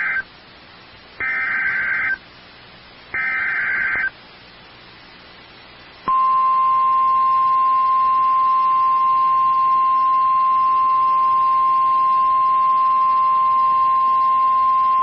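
Emergency Alert System SAME header: harsh digital data bursts, with the end of one and two more of about a second each, a second apart. They are followed from about six seconds in by a steady, single-pitched NOAA Weather Radio warning alarm tone, the signal that a tornado warning broadcast follows.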